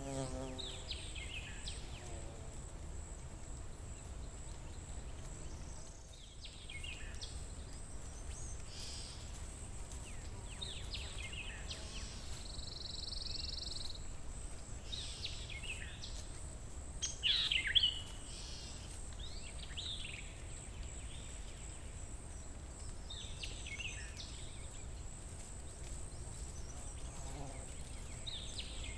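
Forest ambience: several birds chirping in short, scattered calls, the loudest about two-thirds of the way through, over a steady high-pitched hum and a low background rumble. A fly's buzz fades out in the first second.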